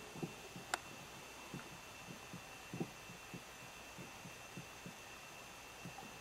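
Faint handheld-camera noise: irregular soft low thumps, about one or two a second, over a steady high-pitched electronic whine, with one sharp click about a second in.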